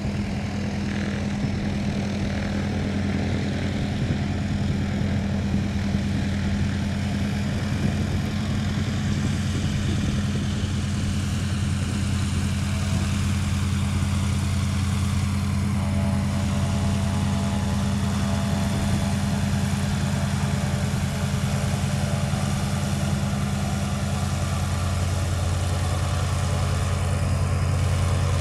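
North American T-6 Harvard Mk IV's nine-cylinder Pratt & Whitney R-1340 Wasp radial engine running at low power as the plane taxis, a steady low drone that swells slightly near the end.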